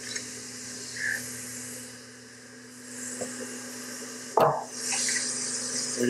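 A wooden board set down on a jointer's metal table with a knock a little past four seconds in, then slid across it with a scraping hiss. A steady machine hum runs underneath.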